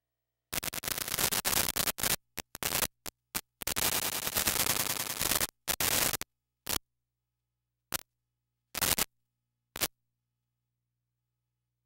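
Harsh static hiss cutting in and out in abrupt bursts, with dead silence between them. Two longer stretches of a second or two come near the start and in the middle, followed by several short blips that stop about ten seconds in.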